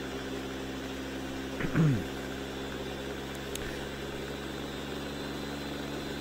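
A Ninja Auto-iQ countertop blender's motor runs steadily, blending a thick milkshake of ice cream, peanut butter, cookies and milk. A brief, louder sweep falling in pitch comes about two seconds in.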